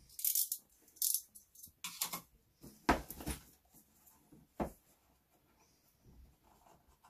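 A few short, scratchy strokes of a blade cutting the packing tape on a cardboard box, then several dull knocks as the box is set down and handled on a desk.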